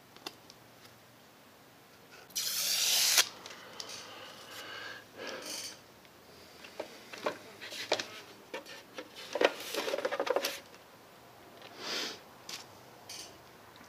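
Handling of a welding helmet and its thin clear plastic cover lens: rubbing and scraping with scattered light clicks. The loudest is a noisy rub lasting about a second, just over two seconds in.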